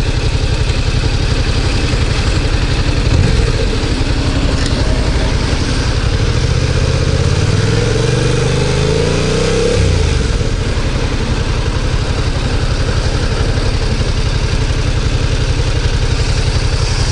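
Yamaha MT-07's parallel-twin engine idling steadily while the bike stands still. Around the middle, another vehicle's engine rises in pitch and then falls away as it passes.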